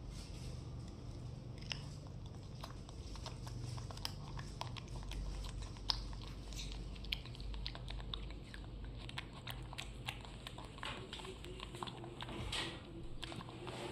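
A baby macaque chewing and biting fruit: many small, irregular clicks of mouth and teeth over a low steady hum.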